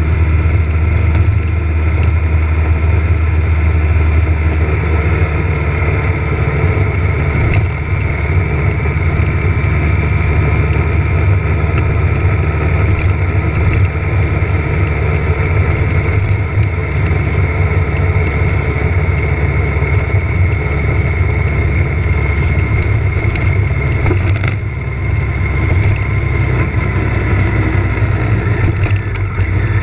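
Motorcycle engine running steadily at road speed, heard from a camera mounted on the bike. The engine note drops briefly about three-quarters of the way through.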